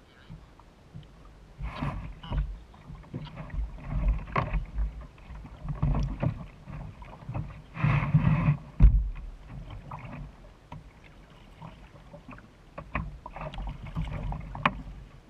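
Water splashing and irregular knocks against a kayak hull as a gaffed fish thrashes beside it and is hauled aboard, loudest about halfway through.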